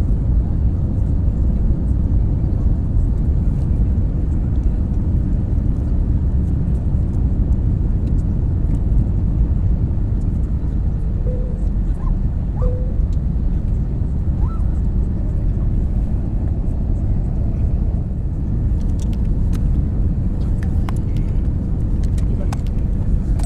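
Airbus A321neo cabin noise on descent: a steady low rumble of airflow and engines heard from a window seat, with a few faint clicks near the end.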